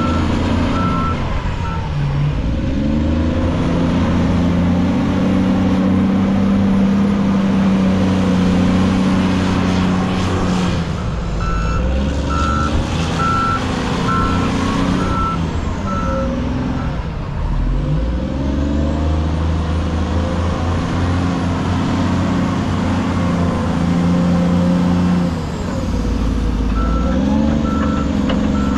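Hitachi ZW310 wheel loader's diesel engine working, revving up and dropping back again several times as it loads. A reversing alarm beeps steadily in three stretches, near the start, midway and near the end, while the loader backs up.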